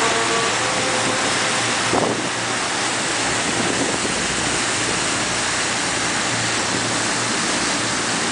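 Steady rushing of wind on the microphone and water churning past a moving cruise boat, over a faint low hum. A brief knock about two seconds in.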